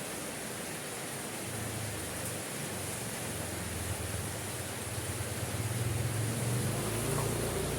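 Steady hiss of falling rain. A low rumble comes in about a second and a half in and builds toward the end.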